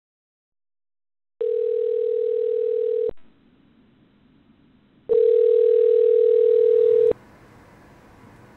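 Telephone ringback tone heard down a phone line: a steady single tone sounding twice, about two seconds each with a two-second gap, then cutting off near the end, leaving a faint steady hiss.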